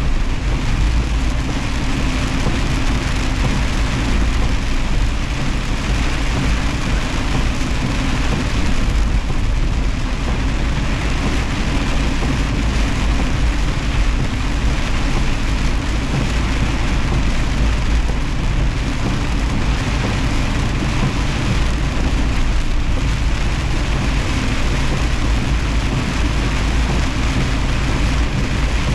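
Semi truck driving at highway speed through heavy rain: a steady low engine drone under the even hiss of rain and wet road noise.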